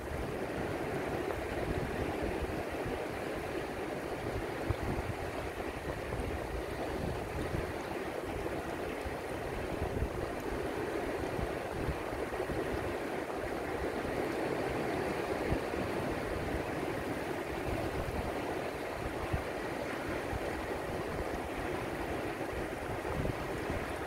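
Shallow surf washing over a rocky shoreline shelf and sand: a steady rushing of water, with an uneven low rumble underneath.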